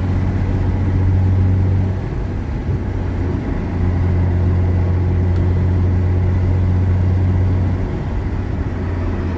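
Nissan GT-R R35's twin-turbo V6 running while the car is driven, heard from inside the cabin as a steady low drone. The drone fades about two seconds in and comes back about a second and a half later.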